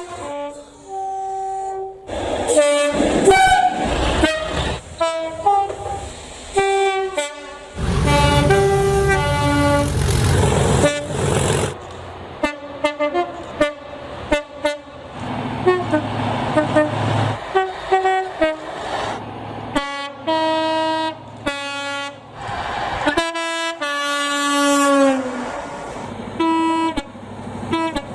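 A rapid run of British diesel locomotive horns cut one after another: many short two-tone blasts, high and low notes in turn, from different locomotives. A stretch of louder train noise sits under the horns about eight to twelve seconds in.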